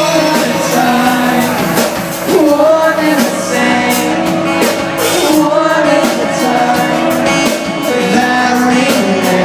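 Live acoustic rock band: a male singer singing over strummed acoustic guitar and bass, with a steady beat.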